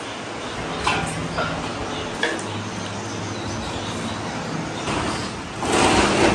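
Metal clinks of a ladle on steel pans twice, then a loud splash near the end as a cooked trotter is lifted out of a big pot of broth and the liquid pours back in, over a steady low hum.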